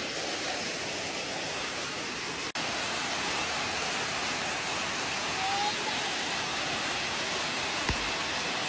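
Steady rushing of storm water, heavy and even throughout, broken by a momentary dropout about two and a half seconds in. A short low thump near the end.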